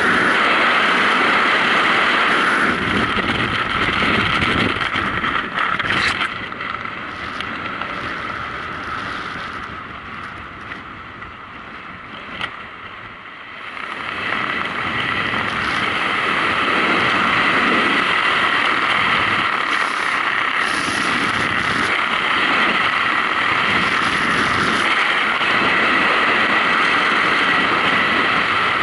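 Rushing freefall wind buffeting a skydiving camera's microphone, a loud steady roar that eases off in the middle and builds up again about halfway through.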